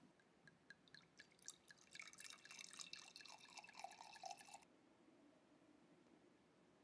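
Faint drips that quicken into a brief splashing pour of liquid, then cut off suddenly.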